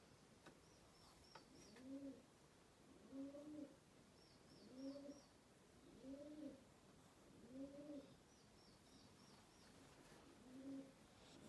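Pigeon cooing faintly over and over, a low rising-and-falling coo about every second and a half, with small birds chirping in quick runs of three or four.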